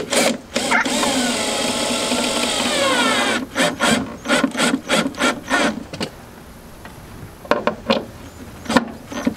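A cordless drill driving a screw into a plywood board: the motor runs for about two seconds with its pitch dipping and rising as the screw bites, then gives a run of quick clicks. It goes quieter after that, with a couple of single clicks near the end.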